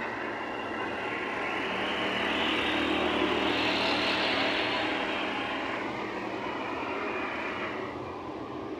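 An ATS 290 tractor's diesel engine running steadily. Its rushing noise swells and fades around the middle.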